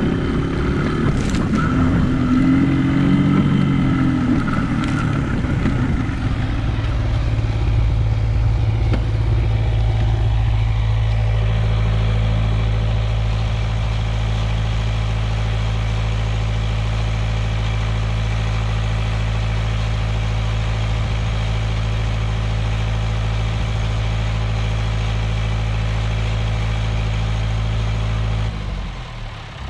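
Small off-road motorcycle engine rising and falling in pitch as it rides over rough ground, then idling steadily from about ten seconds in. Near the end the idle stops and a quieter, steady engine hum carries on.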